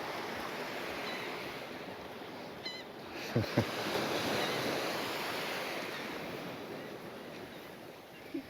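Small sea waves washing onto the beach, a steady surf hiss that swells about three seconds in, with a few short high chirps. Two quick soft thumps sound close together during the swell.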